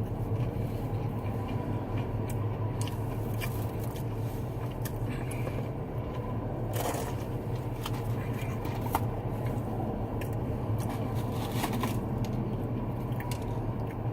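Close-up chewing and biting of crunchy fried food, with scattered crunches and wet mouth sounds over a steady low hum.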